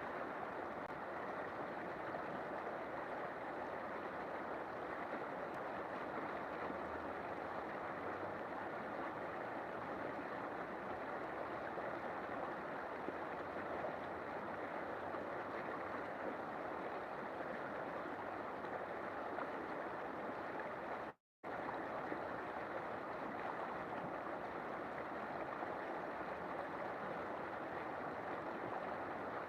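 River water flowing, a steady even rush with no change in strength. It cuts out completely for a fraction of a second about two-thirds of the way through.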